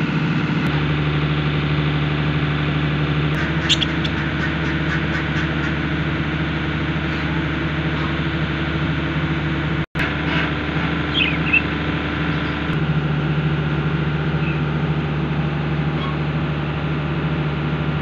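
A steady mechanical hum from a running motor, its pitch shifting slightly a few times, with a quick run of small bird chirps about four seconds in and a few more short chirps around eleven seconds.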